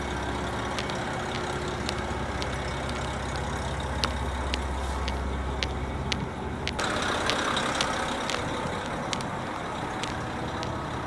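Diesel train engine running at a station platform, a steady low hum with scattered clicks; about six seconds in the hum drops and a louder rushing, hissing noise comes in.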